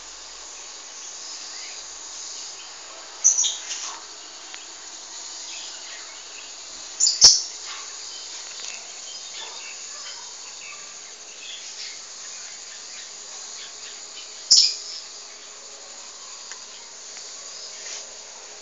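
Steady high-pitched chorus of insects such as crickets, broken by three short bird chirps: about three seconds in, about seven seconds in (with a sharp click), and about fourteen seconds in.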